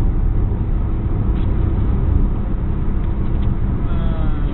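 Opel Corsa's engine and road noise heard from inside the cabin while the car is driven at speed, a steady drone.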